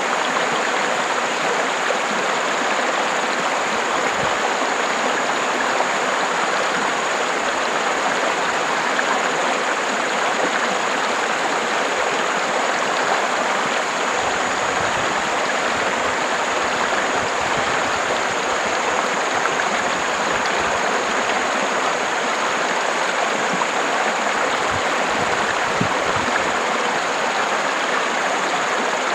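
River water flowing, a steady, unbroken rushing with a few brief low rumbles.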